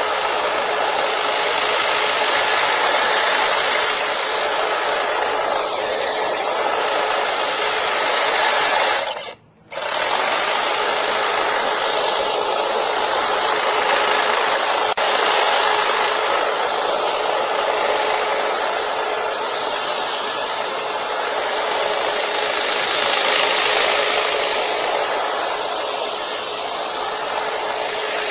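Hedge trimmer running steadily, its blades chattering with a constant hum; the sound drops out for about half a second some nine seconds in, then carries on unchanged.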